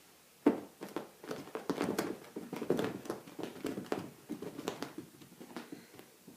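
Cats' paws thudding and scrabbling on the floor as they chase a laser pointer dot: one sharp thud about half a second in, then a few seconds of quick, irregular taps and patters that die away near the end.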